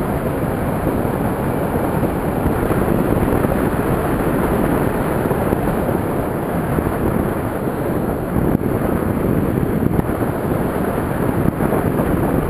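Steady rushing wind on an onboard camera's microphone in flight, a loud low roar with no clear engine or propeller tone.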